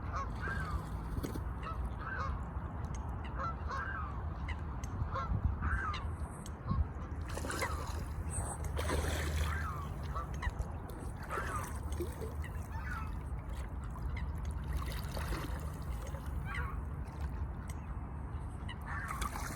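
A swan honking at Canada geese: short honks repeated irregularly, about one a second, over a steady low rumble.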